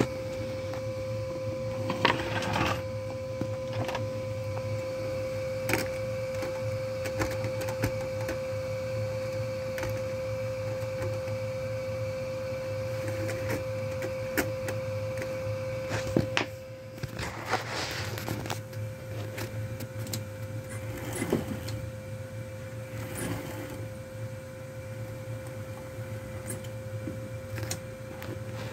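Model train running on the layout: a steady electric motor whine over a low hum, with scattered light clicks. The whine drops back briefly a little past halfway, then carries on.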